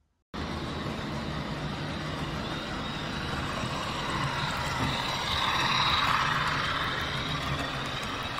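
Model train running on the layout: a steady running noise with a low hum that starts suddenly and grows somewhat louder about five to six seconds in.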